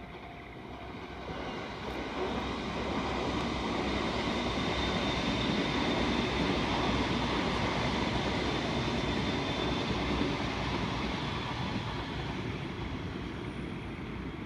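Electric local train passing over a level crossing. The running noise of wheels on rails builds over the first two seconds, is loudest through the middle and slowly fades as the train moves away.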